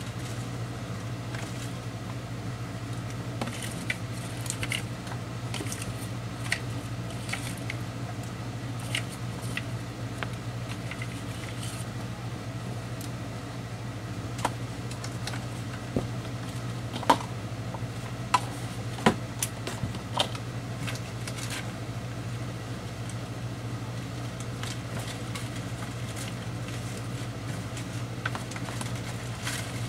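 Paper die-cuts and embellishments being picked through by hand in plastic storage baskets: scattered light rustles and clicks of paper and plastic, over a steady low hum.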